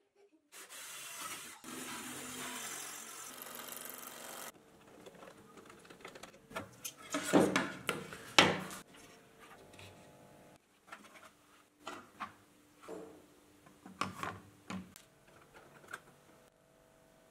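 A hand-held electric drill runs for about four seconds, boring through clear acrylic sheet. It is followed by rubbing, scraping and clicking as acrylic and wooden parts are handled and fitted together, with two louder scrapes about midway.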